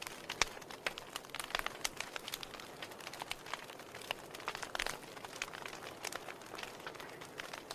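Wood fire in a fireplace crackling: irregular sharp pops and snaps, several a second, over a soft steady hiss of burning.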